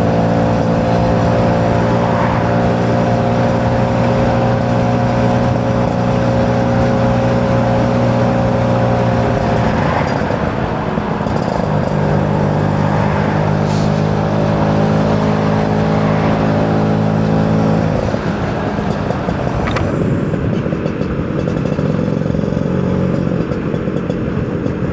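Two-stroke scooter engine running steadily under way, with wind noise. The engine note changes twice, about ten seconds in and again near eighteen seconds.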